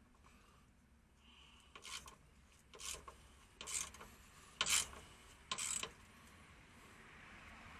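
Five short rasping scrapes about a second apart, the loudest near the middle, from hand work on the truck's undercarriage.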